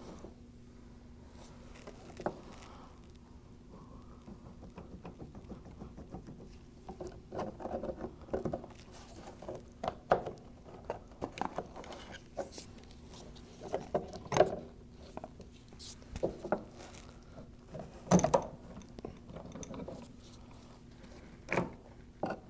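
Hand tools working the displacement pump's mounting bolts loose on a Graco E-10 proportioner: scattered metal clicks and knocks, with runs of quick small ticks in the middle and a few louder knocks near the end.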